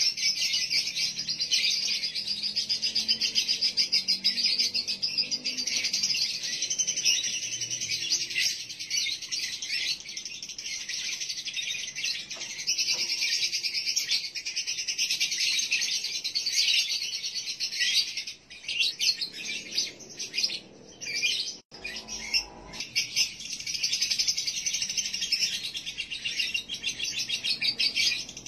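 Male lovebird chattering in a long, rapid, almost unbroken trill ('ngekek'). This is the 'konslet' song of a male in breeding condition, used as a lure to bring other males into breeding mood. It breaks off briefly a few times about 18 to 22 seconds in.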